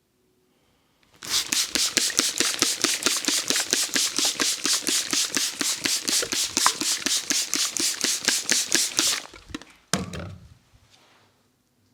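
Tok-Sen massage: a wooden mallet rapidly tapping a wooden wedge, an even run of sharp strikes at about five a second that starts a second in and stops about nine seconds in. A single heavier thump follows about ten seconds in.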